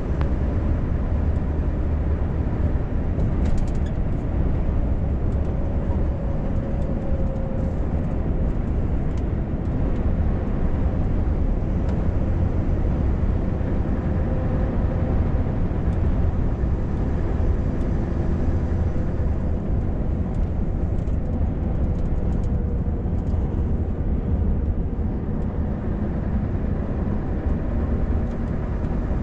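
Scania R580's 16-litre V8 diesel engine drones steadily under tyre and road noise, heard from inside the truck's cab as it drives.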